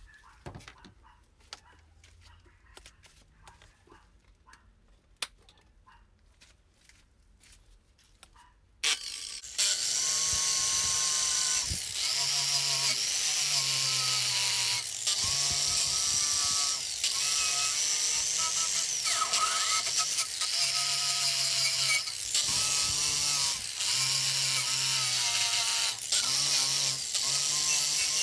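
Faint clicks and taps, then about nine seconds in an electric power tool starts and runs loudly, its sound dropping briefly every second or two.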